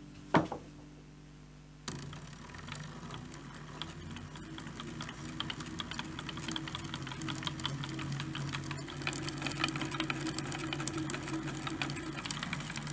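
A single salvaged unipolar stepper motor turning the Z-axis: buzzing steadily with a fast, even stepping rattle as it drives two lead screws through a timing belt. It starts about two seconds in, after a sharp click.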